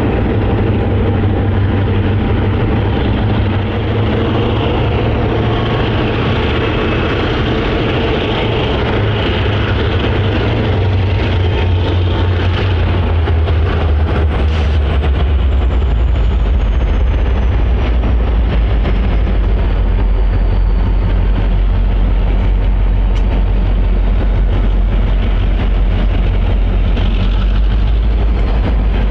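Four diesel-electric locomotives working hard under load, pulling a train of tank cars up a steep grade in a steady heavy drone. Their low rumble grows stronger about halfway through as the train draws closer.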